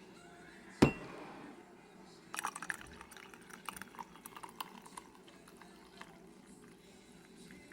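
A single sharp knock about a second in, then liquid pouring and dripping in a run of small splashing clicks from about two to five seconds in.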